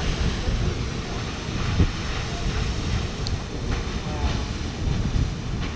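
Grand Geyser erupting: a steady rush of water and steam, loudest in the low end.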